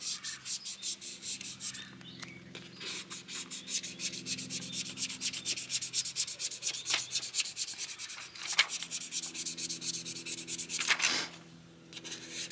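A small applicator squeegee rubbing over a plastic screen-protector film on a dash display's screen, a quick run of scratchy strokes, with a faint steady hum underneath.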